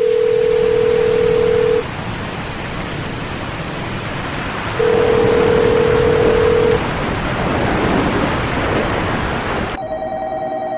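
A telephone ringing tone heard down the line: a steady low tone for about two seconds, a pause of about three seconds, then the tone again. It plays over a loud, steady rush of wind and water. About ten seconds in, the rush cuts off suddenly and other steady telephone tones take over.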